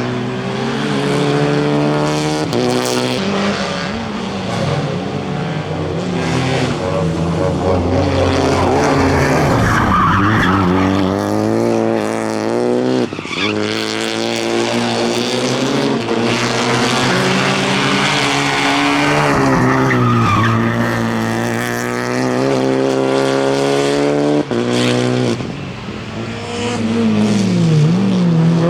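Rally car engine at high revs, its pitch climbing and dropping again and again through gear changes and lifts off the throttle, with tyres skidding and squealing.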